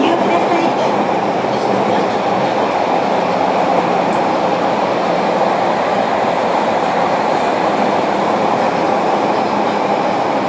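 JR Kyushu 305 series electric train heard from inside the motor car MoHa 305-105 while running: steady wheel-on-rail running noise with a faint steady low hum, easing slightly near the end.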